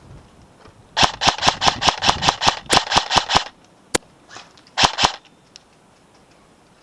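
Airsoft SVD-S sniper rifle replica firing quick semi-automatic shots: a rapid string of about a dozen sharp cracks over some two and a half seconds, then a lone shot and a final pair a second later.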